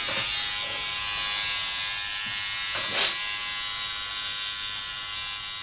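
Electric tattoo machine buzzing steadily as the artist tattoos skin: a thin, high, even buzz with many overtones.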